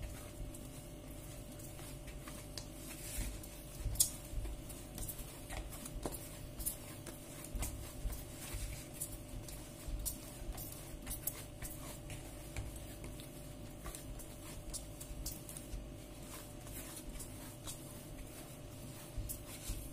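Hands kneading a soft yeast dough in a bowl: faint, irregular pats, squishes and small soft knocks as the dough is pressed and turned.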